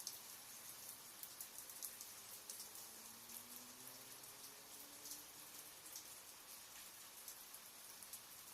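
Light drizzle: a faint, steady patter of scattered raindrops ticking on a surface.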